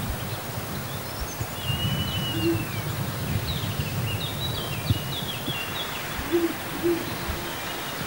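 Owl hooting in short low hoots, one about two and a half seconds in and two close together near the end. Small birds whistle and chirp at a much higher pitch in between, over a steady low rumble.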